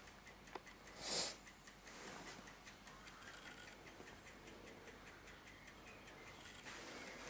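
A clock ticking faintly in a quiet room, with one short hiss about a second in.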